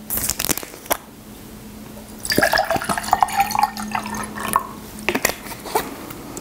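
The cap of a plastic water bottle is twisted open with a few sharp crackles. Then water is poured into a drinking glass for about two seconds, the pitch slowly rising as the glass fills. A few short clicks follow near the end.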